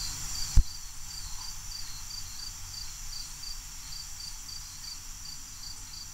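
A cricket chirping steadily, about three short high chirps a second. A single low thump sounds just over half a second in.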